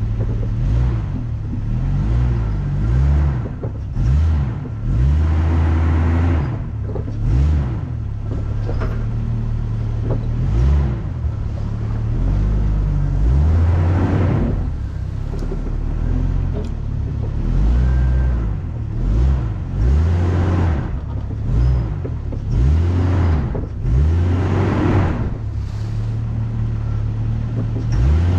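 A vehicle engine driven on a rough trail, revving up and easing off repeatedly in surges.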